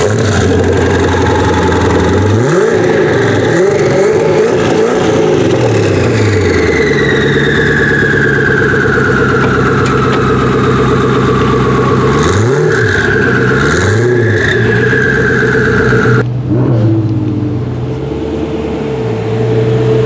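Koenigsegg Agera's twin-turbocharged V8 running just after start-up. It is blipped several times, revs rising and falling about two to five seconds in and again around thirteen to fourteen seconds, with a whine slowly falling in pitch in between.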